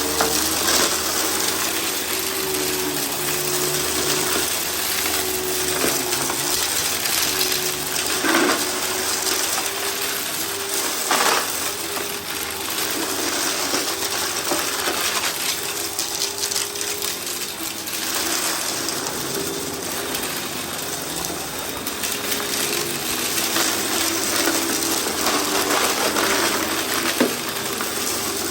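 Eureka PowerSpeed bagless upright vacuum running over a pile of grit and fluff, its motor whine wavering under the rush of air, with sharp clicks of debris rattling up through it now and then. The vacuum is struggling with the mess and clogging in the cleaner head, hose and cyclone.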